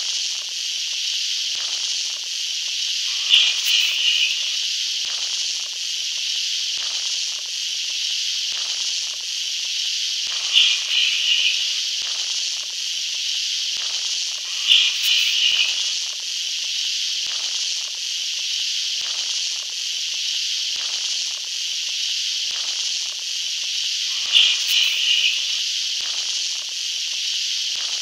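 Steady analogue static hiss, as from old videotape noise, with faint scattered clicks and four short, louder crackling bursts spaced several seconds apart.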